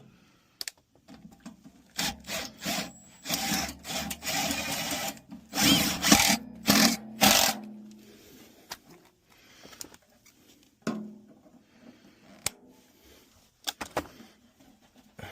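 Screws being driven back into a motor's mounting holes with a power drill in several short runs, the threads grinding through pieces of plastic zip tie packed into the holes to help them bite. This is followed by scattered clicks and knocks of handling.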